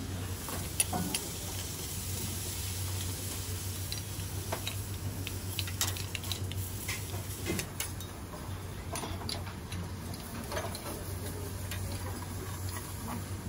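Sizzling on a teppanyaki steel griddle with scattered sharp clicks of metal spatula and knife against the steel, over a low steady hum.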